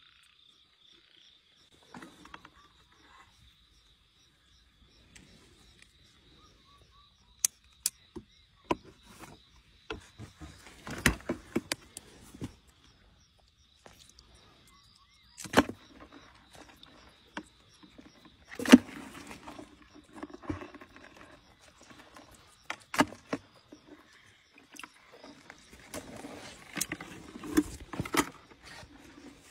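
Metal tongs clicking and scraping in shallow muddy water while picking out crayfish, with sharp clacks and bursts of splashing and rustling in the mud and debris. Under it an insect, like a night cricket, gives one steady high-pitched trill that stops about two-thirds of the way in and later resumes.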